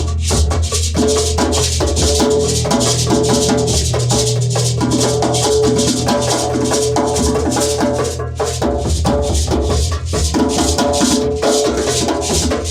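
Music with a quick, steady percussive rhythm of dense clicks over a sustained bass and short repeating pitched notes.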